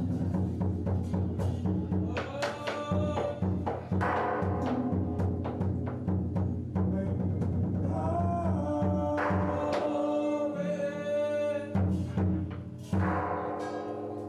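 Music with drum beats under sustained instrument tones, and a singing voice that comes and goes.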